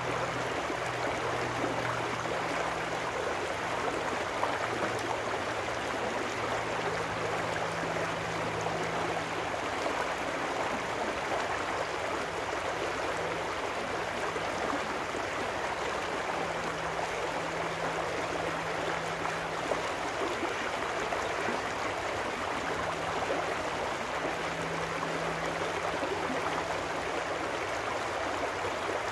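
Shallow trout stream rushing and burbling over rocks in a steady riffle, with a faint low hum that comes and goes underneath.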